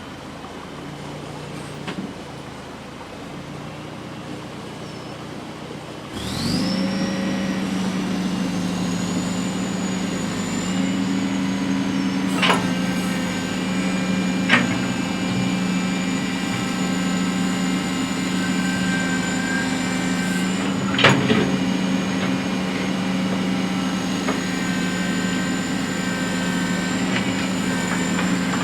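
Case 780 backhoe's diesel engine running low, then revving up about six seconds in and holding a steady higher speed with a high whine. A few sharp metallic knocks come through over it, typical of the bucket and linkage at work.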